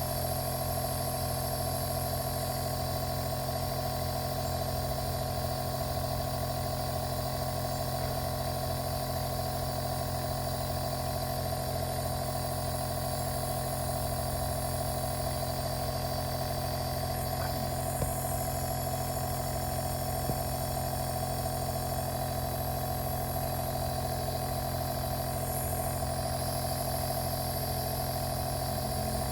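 Compressor nebulizer's small electric compressor running with a steady hum, with a light click about 18 seconds in.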